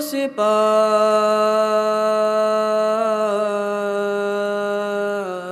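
A single voice singing an Urdu devotional nazm, holding one long drawn-out note that steps down in pitch twice, about three seconds in and near the end.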